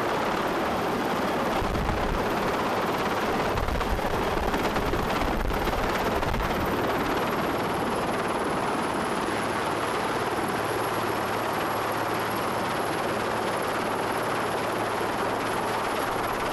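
Sea King helicopter's rotor and twin turbines running as it sets down on a ship's flight deck, with heavy rumbling rotor wash in the first few seconds. The rotors keep turning after touchdown, and a high turbine whine drops slightly in pitch about seven seconds in.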